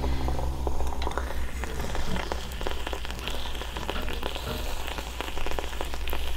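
Bialetti stovetop moka pot sputtering and gurgling as the last of the brewed coffee spits up through the central spout: a dense crackle of small pops over a hiss, thickening about two seconds in. This spluttering marks the end of the brew.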